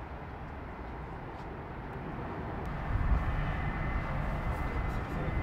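A heavy engine running, a steady low rumble that grows louder about three seconds in.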